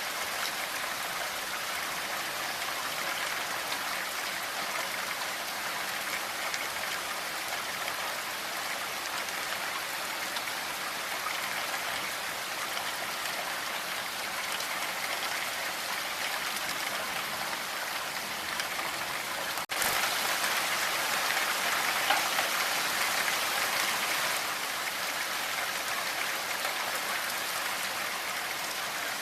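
Steady rain falling in an even hiss of drops. About twenty seconds in the sound cuts out for an instant, then the rain is louder for about five seconds before settling back.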